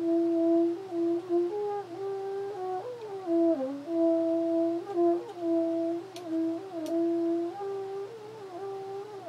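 French horn played softly: a slow line of long held notes with sliding, wavering bends between them.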